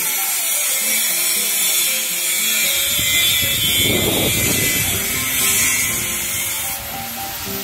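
Steady hissing crackle of an arc welder joining a steel beam, over soft background music; a low rumble comes in a few seconds in.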